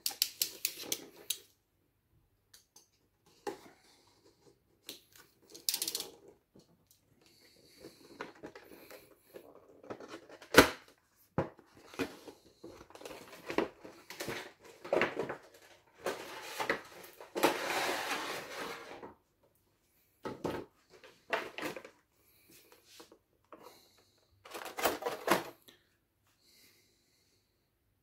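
An action figure being unpacked: irregular clicks and crinkles of a clear plastic blister tray and cardboard box being handled. There is a sharp knock about a third of the way in and a longer rustle a little past the middle.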